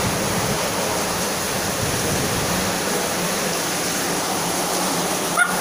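Steady rushing noise with one short bump near the end.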